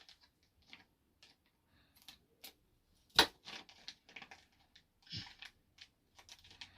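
Small plastic toy packaging being handled and opened: a scatter of light clicks and crackles, with one sharp snap about three seconds in.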